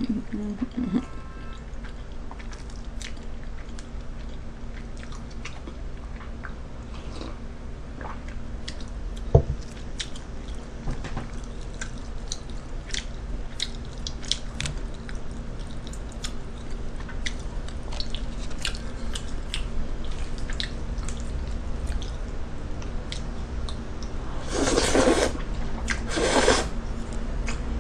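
Close-miked chewing and small wet mouth clicks of someone eating fried rice and noodles, over a low steady hum. One sharp knock about nine seconds in. Near the end come two louder noisy bursts as food is eaten straight from a bowl held to the mouth.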